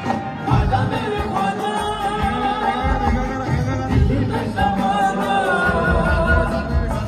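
Live qawwali music: singing over sustained melodic tones, with low drum beats throughout.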